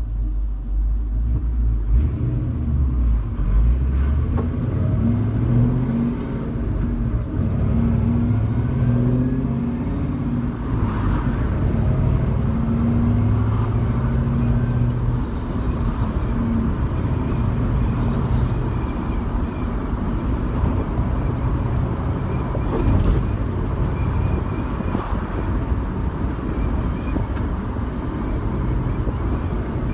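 A 1966 Jeep Wagoneer heard from inside the cabin while driving. Over the first fifteen seconds or so the engine note rises and drops in steps as the truck gathers speed, then settles into a steady drone under tyre and wind noise.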